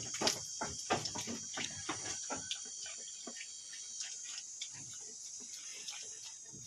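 Goats feeding on a leafy herb: irregular crunching and snapping clicks of chewing and tearing leaves, thinning out in the second half, over a steady high-pitched buzz.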